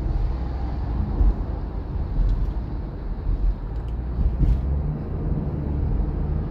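Road and engine rumble inside a moving car's cabin: a steady low drone, with a faint steady hum joining about two-thirds of the way in.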